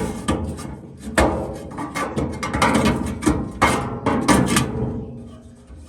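Repeated irregular knocks and clatter of tools and metal parts being handled during work on a gas furnace.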